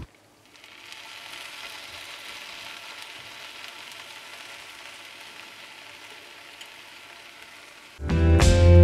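Dolma filling with sour cherries sizzling steadily in a frying pan. Music comes in near the end.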